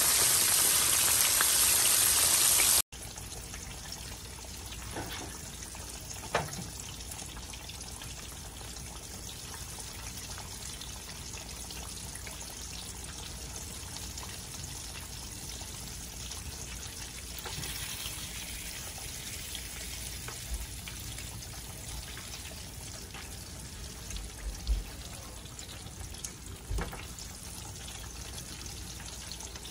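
Catfish frying in hot oil: a loud, even sizzle that cuts off abruptly after a few seconds to a quieter, steady sizzle, with a few soft knocks.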